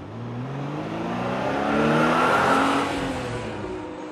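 Car engine accelerating, its pitch rising as it gets louder. It peaks about halfway through and then fades.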